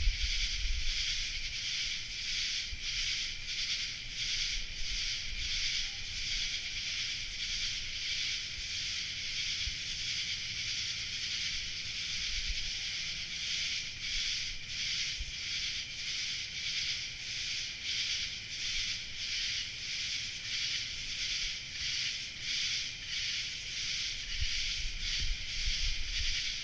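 A chorus of night insects singing, a dense high-pitched chorus pulsing evenly at about two to three beats a second. A faint low rumble comes at the start and again near the end.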